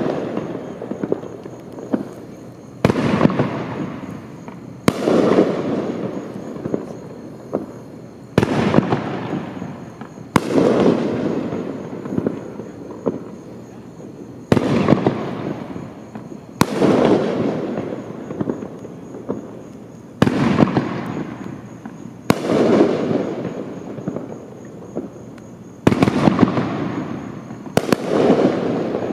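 Dragon Blast consumer aerial firework going off: about ten loud bangs in pairs about two seconds apart, the pairs about three and a half seconds apart, each bang trailing off over a second or two.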